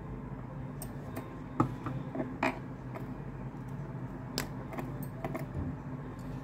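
Light plastic clicks and knocks as a small dropper bottle is handled and pulled out of a clear plastic jar, over a steady low hum. The sharpest clicks come between about one and a half and two and a half seconds in.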